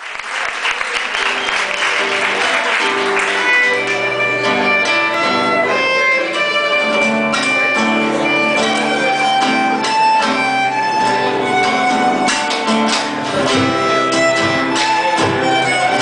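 Live Argentine zamba played on violin and two acoustic guitars with percussion, the bowed violin over strummed and plucked guitars. A noisy wash, likely applause, dies away in the first three seconds or so as the tune gets going.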